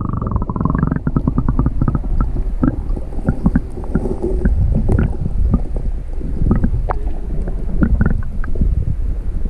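Water heard through a camera microphone held under the river surface: a muffled low rumble with gurgles and many scattered small clicks and knocks as a hand holds a trout in the current.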